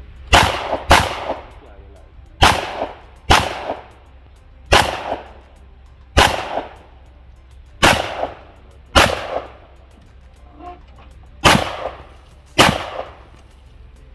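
Ten gunshots from a competitor's timed shooting run, fired mostly in pairs about a second apart with longer gaps between the pairs, each shot with a short echo.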